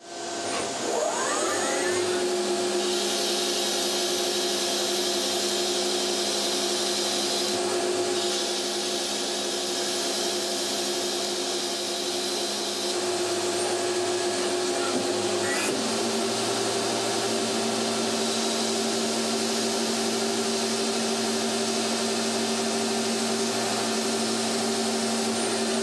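Miyano BNA42MSY twin-spindle CNC lathe running while it turns parts: a steady machine whine, with a high hiss from about two to thirteen seconds in and a shift in the whine's pitch about sixteen seconds in.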